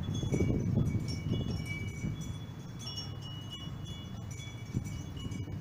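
Wind chimes ringing: scattered thin, high, bell-like tones that overlap and fade, over a steady low rumble.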